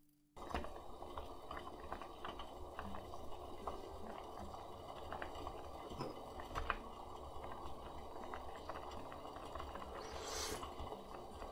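Dashi stock with bonito flakes boiling hard in a hammered saucepan, starting about half a second in: steady bubbling with many small pops. A short hiss comes about ten seconds in.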